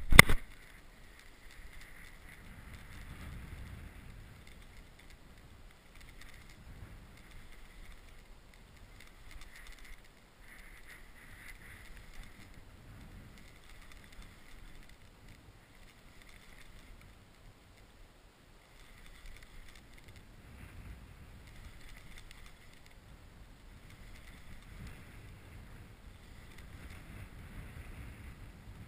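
Gusty wind on the microphone, with water lapping at a kayak, after a sharp knock right at the start.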